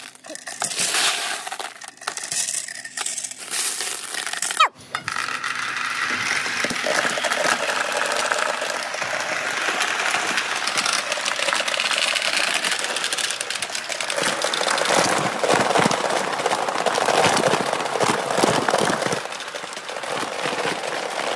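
Marbles and billiard balls clicking and knocking through a bamboo-tube marble run, with one hard knock about four and a half seconds in, then a continuous rolling rattle through the tubes that grows louder near the end.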